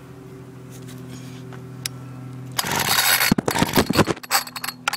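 Steady low hum, then about two and a half seconds in a rasping yank on a Homelite string trimmer's recoil pull-starter, followed by a clatter of irregular knocks; the two-stroke engine does not catch.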